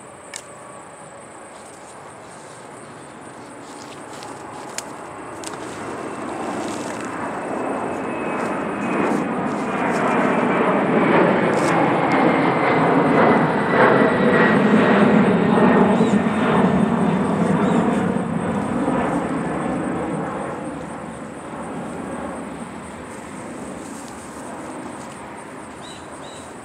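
An aircraft passing overhead: its engine noise builds slowly, is loudest about halfway through, then fades away, with a high whine that slowly drops in pitch as it goes by.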